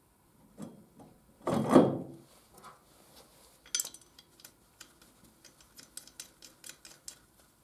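Metal clunks as a motorcycle's rear final drive housing with its drum brake is offered up and seated on the end of the swing arm, the loudest just under two seconds in, followed by a run of small, quick metallic clicks from the flange nuts and bolts being fitted.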